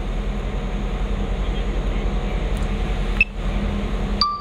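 Boat's MAN V12 diesel engine running under way, a steady low hum with a held tone and a fast even pulse, briefly cut out about three seconds in.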